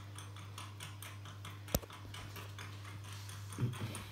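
One sharp click a little under two seconds in, typical of a computer mouse button, over a steady low electrical hum and fast, faint ticking. A short low knock or rustle comes near the end.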